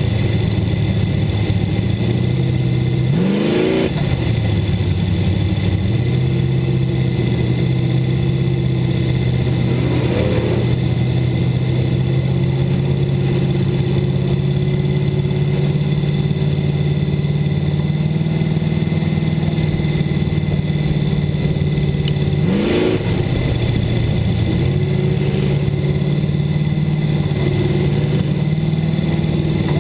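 Sportmod race car's V8 engine heard from inside the cockpit, running steadily at low revs, with three quick throttle blips: about three seconds in, about ten seconds in, and past the twenty-second mark.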